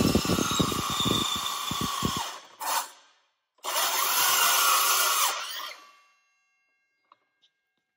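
Milwaukee M18 Fuel 2982-20 cordless metal-cutting circular saw cutting through metal plate, a harsh whine with rapid chatter from the carbide blade, ending a little over two seconds in. After a short break the saw runs again for about two seconds, then winds down and stops, leaving only a couple of faint ticks.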